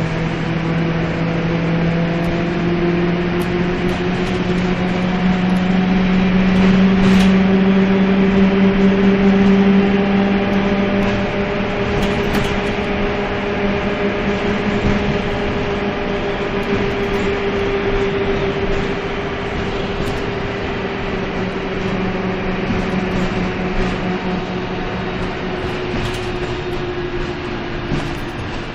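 Karosa B931 city bus's diesel engine and drivetrain heard from inside the passenger cabin while under way. The hum rises in pitch over the first few seconds, holds steady and drops near the end, with occasional brief rattles.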